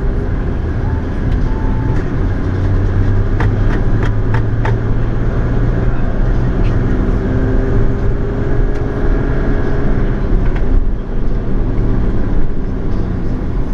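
Car driving in city traffic, heard from inside the cabin: a steady engine and road rumble, with a few sharp clicks about three to five seconds in.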